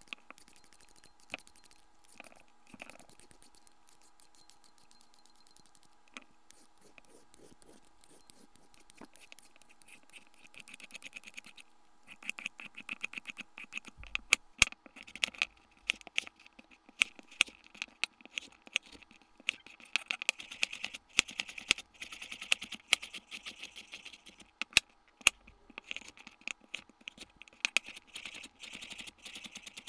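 A vegetable peeler scraping strips off a carrot in repeated strokes over a wooden cutting board, the strokes getting louder and sharper about halfway through. Near the end a chef's knife chops the carrot, its blade striking the bamboo board in quick taps.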